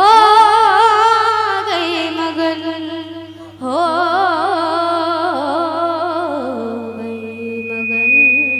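A woman singing a devotional kirtan melody in two long held phrases with a wide, wavering vibrato, a short break between them, over a steady low drone.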